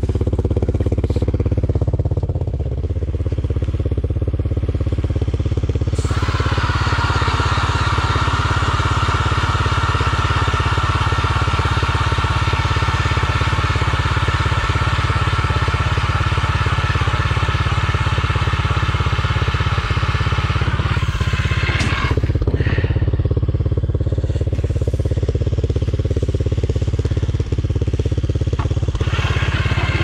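Power ice auger drilling holes through lake ice. Its motor runs with a steady high-pitched drone from about six seconds in for roughly fifteen seconds, and starts again just before the end, over a steady low rumble.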